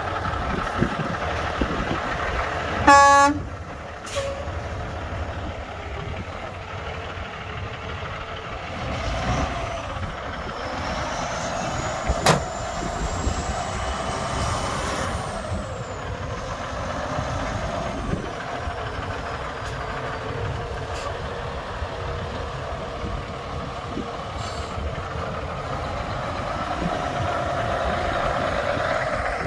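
2006 International 9200i day cab truck tractor's diesel engine running steadily as the truck drives around. A short, loud horn blast sounds about three seconds in, and a single sharp click comes near the middle.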